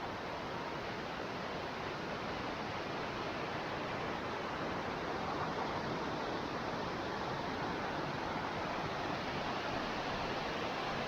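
Steady rushing and splashing of a cascading waterfall, growing slightly louder.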